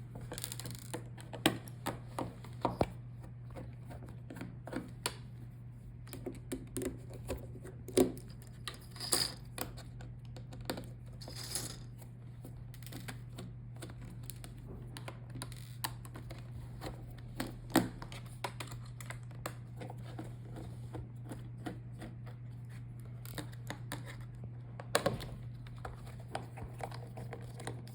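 Scattered small clicks, taps and scrapes of a screwdriver and of screws and metal parts being handled as a laptop screen hinge is unscrewed and lifted. A steady low hum runs underneath.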